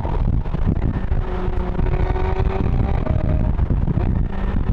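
McLaren 765LT Spider's twin-turbo V8, breathing through IPE downpipes, running at a steady pitch as the car drives through a road tunnel with the roof down: a dense low rumble.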